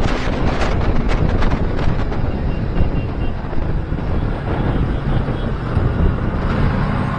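Wind rushing and buffeting across the microphone of a motorcycle riding at speed, with engine noise underneath.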